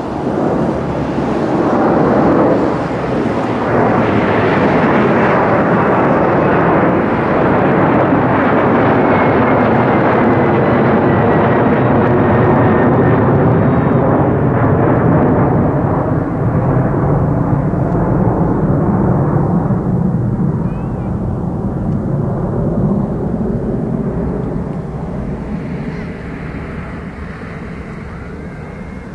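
Jet noise from a Boeing 767-300ER's twin turbofan engines at takeoff thrust as the airliner climbs out overhead. Loud and dense, with a whine that falls slowly in pitch as it passes, then fading steadily as the plane climbs away.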